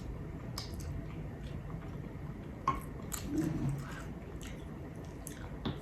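A person chewing a mouthful of chicken and broccoli casserole, with scattered wet mouth clicks and smacks and a brief low voiced hum about three and a half seconds in.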